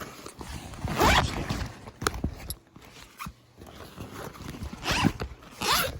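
A backpack zipper being pulled in three quick rasping strokes, about a second in and twice near the end, with handling noise in between.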